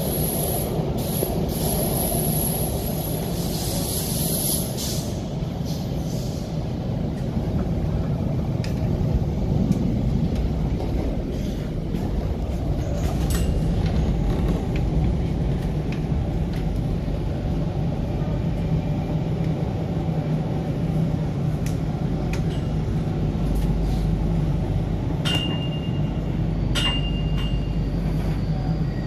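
Inside an MTR K-Train car under way: the steady rumble of wheels on rail and running gear, with a hiss in the first few seconds. A few short high-pitched squeaks sound late on, as the deep rumble grows.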